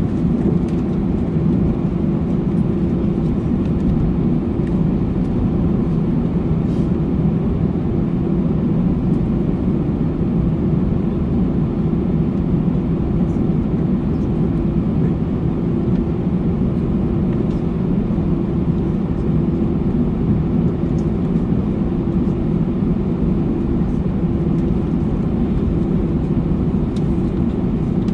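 Airbus A321's CFM56 turbofans at taxi power heard from inside the cabin over the wing: a steady low rumble with one held hum, and a few faint ticks.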